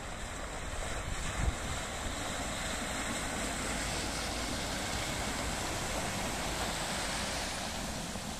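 Small outboard-driven sit-on watercraft passing close and heading away over calm harbour water: the rushing hiss of its hull and wake, loudest in the middle, with wind buffeting the microphone.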